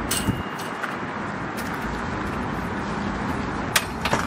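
Steady rushing noise of distant road traffic. Near the end come a few sharp metallic clicks and clatters as a black metal folding stool frame is handled.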